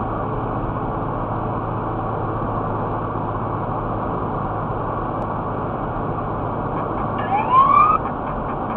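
Steady road and engine noise inside a car cruising at freeway speed. About seven seconds in, a short rising electronic alert tone sounds, the ALPriority laser system's alert that the Poliscan speed lidar has been detected.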